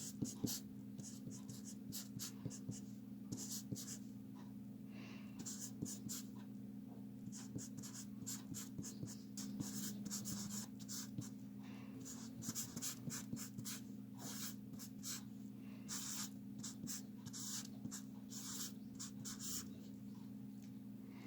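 Writing on paper: many short, irregular scratchy strokes, over a steady low hum.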